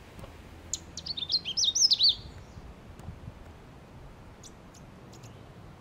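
Male Canada warbler singing one quick, jumbled phrase of rapid high notes, starting about a second in and lasting about a second and a half. A few faint short high notes follow later.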